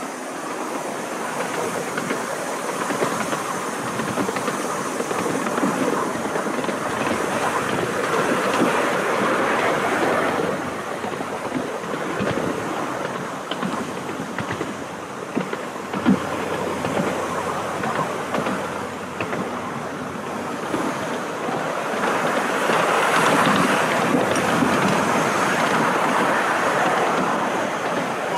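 Miniature railway train running along the track behind a small steam locomotive: a steady rumble from the carriages with irregular clicks of the wheels on the rails.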